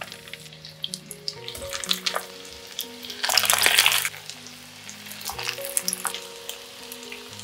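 Breaded zucchini cutlets frying in shallow oil in a nonstick pan: a steady sizzle full of crackles, with a louder hiss lasting about a second about three seconds in.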